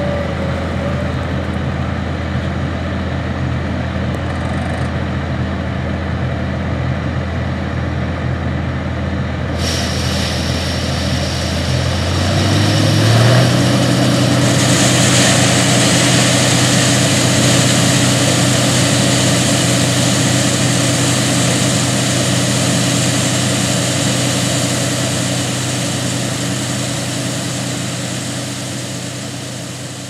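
Case IH 1680 Axial-Flow combine and a grain-cart tractor running steadily side by side. About 13 seconds in, the engine note rises and gets louder, and a steady hiss joins as soybeans pour from the combine's unloading auger into the cart.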